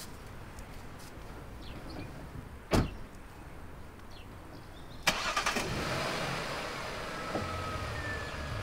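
A car door shuts about three seconds in. About two seconds later the Jaguar S-Type's engine is started and keeps running steadily.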